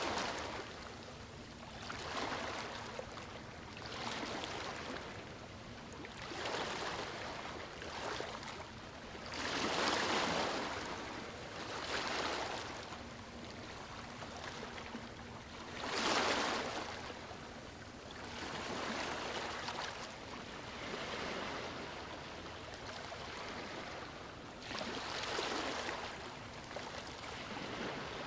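Small waves washing in and out, a rushing swell every couple of seconds, with two bigger ones about ten and sixteen seconds in.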